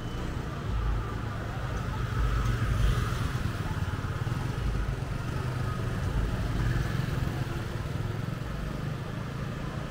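Street ambience: a motor vehicle's engine running steadily, with faint voices of people around.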